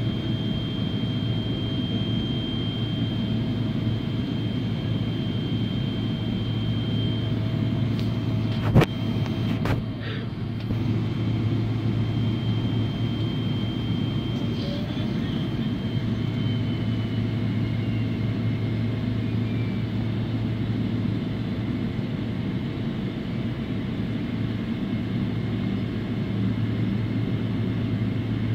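Steady low hum inside the cabin of a Boeing 777-300ER taxiing, its GE90 engines at low thrust, with a faint high whine in the background. A single sharp click about nine seconds in.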